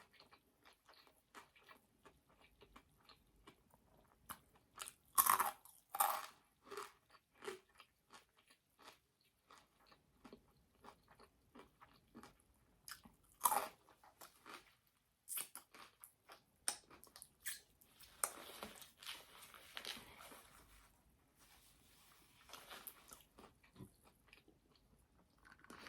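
A person biting and chewing a chicken sandwich: irregular moist chewing clicks and crunches, with sharper bites about five, six and thirteen seconds in.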